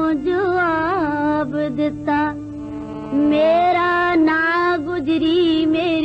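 A woman singing a Punjabi folk song, with an ornamented melody, wavering held notes and pitch slides, over a steady low drone. The voice drops quieter for about a second in the middle, then comes back strongly.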